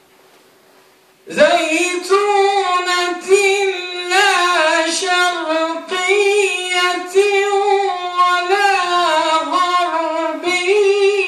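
A man chanting Quranic recitation in the Warsh reading. He starts about a second in with one long, slow melodic phrase, held mostly on one high note with wavering ornamental turns.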